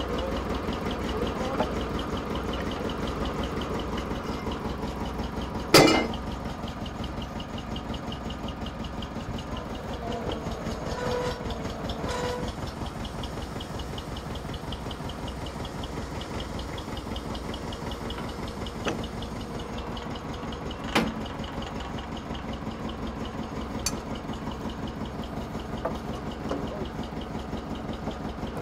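An old tractor's engine idling steadily while its crane loads logs onto a timber trailer. There is one loud knock about six seconds in and single sharper knocks later on as the logs strike the trailer and each other.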